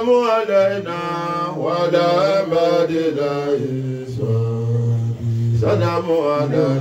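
A man's voice chanting an Islamic devotional chant through a microphone and loudspeaker, in long held and bending notes, with a low steady drone beneath.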